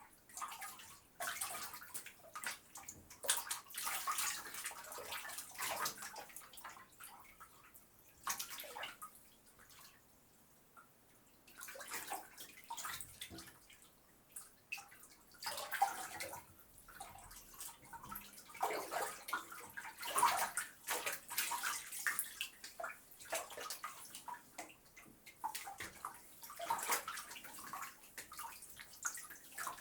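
Water in a filled bathtub splashing and sloshing as a person moves about in it, in irregular bursts. There is a quiet pause of a couple of seconds about a third of the way in.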